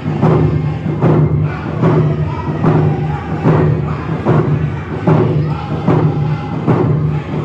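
Round dance song: a group of male singers singing together in a low register over hand drums beating a steady beat about twice a second.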